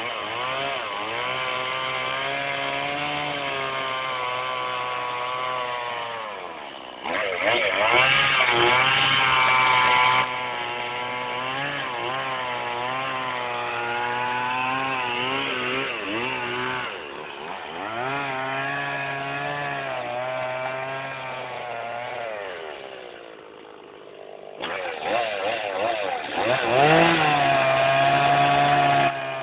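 Chainsaw running at high speed and cutting wood, its pitch wavering under load. It drops back to a lower speed three times before revving up again.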